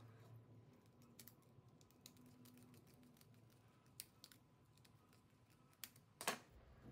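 Faint, scattered clicks and ticks of a small precision screwdriver working the screws of a metal aviation plug's cable clamp, with a louder knock near the end as the plug is handled.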